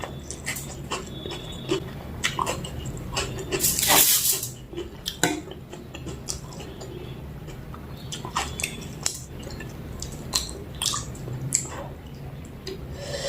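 Close-miked eating of mutton curry and rice: chewing, wet mouth sounds and scattered clicks and clinks against a plate, with a louder noisy burst about four seconds in.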